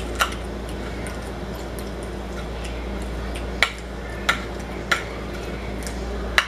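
Metal fork clinking against a china plate while salad is speared: five sharp clinks, spaced out, the last near the end, over a steady low hum.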